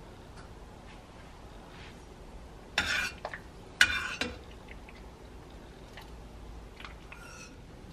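A spoon stirring and scraping inside an enamelled cast-iron Staub pot, in two short bursts about three and four seconds in, the second starting with a sharp clink.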